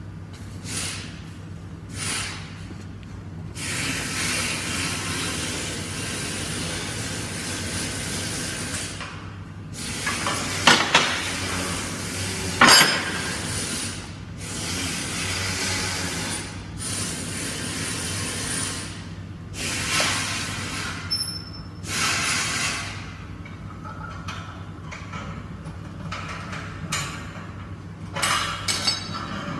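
Heavy steel fabrication work: repeated bursts of hissing noise lasting from a moment to several seconds, broken by a few sharp metal clanks and clinks, over a steady low machine hum.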